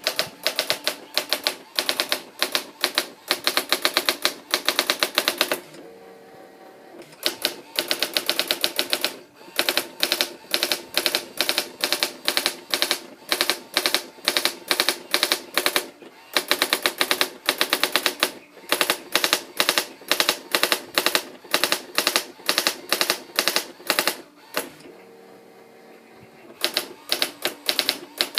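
Brother AX-600 electronic daisy-wheel typewriter printing automatically, with rapid runs of sharp typing strikes. Twice the strikes stop for a second or two while a steady motor hum sounds, before the strikes resume.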